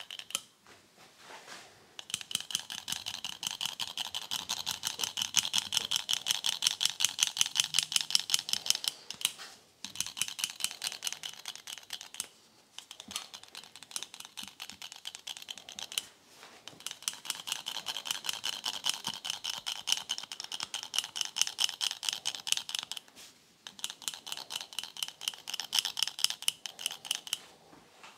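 Manual hand hair clipper cutting beard hair: rapid, evenly spaced metallic clicks, about seven a second, as the handles are squeezed. It comes in five runs of a few seconds each, with short pauses between.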